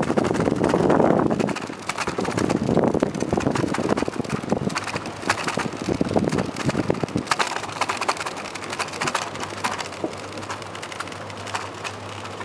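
Bicycle rolling over wooden boardwalk planks, a rapid, uneven run of clicks and rattles as the tyres cross the boards, with wind rumbling on the microphone in the first half. It grows quieter after about seven seconds.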